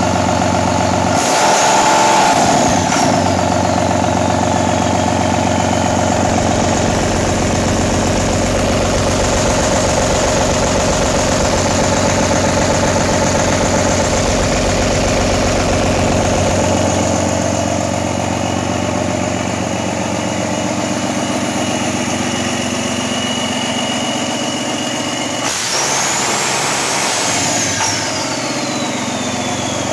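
2002 Cummins ISB 5.9L turbocharged 24-valve diesel running steadily on a test run, briefly revved up about a second in and again near the end; each time a high turbocharger whine climbs and then slowly falls away.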